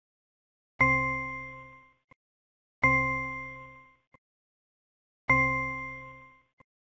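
Three bright electronic chime dings from an interactive e-book's fill-in-the-blank exercise, each ringing out and fading over about a second, one for each word dropped into its blank. A faint tick follows each ding.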